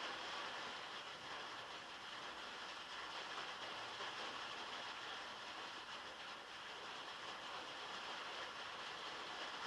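Heavy rain falling steadily on metal, heard from inside a shed.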